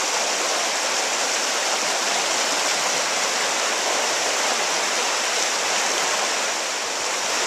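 River rapids: whitewater rushing over rocks in a steady, even rush.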